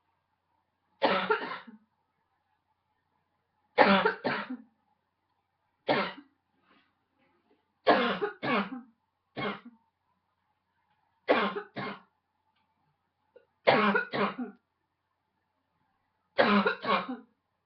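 A woman's barking cough, in about eight fits of one to three coughs each, with a pause of a couple of seconds between fits.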